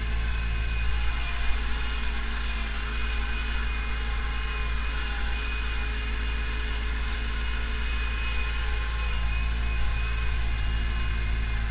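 Pronar 82SA tractor's diesel engine running steadily under load, heard from inside the cab while it pulls a seedbed cultivator.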